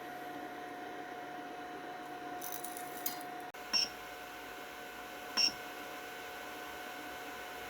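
3D printer's buzzer beeping twice, short and high-pitched, about a second and a half apart, over a steady electrical hum that shifts abruptly about halfway through.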